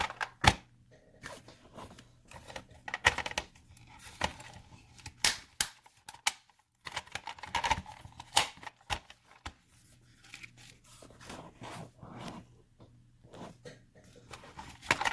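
Hard plastic toys being handled, a dinosaur figure and a toy ambulance set against each other, giving irregular clicks and taps of plastic.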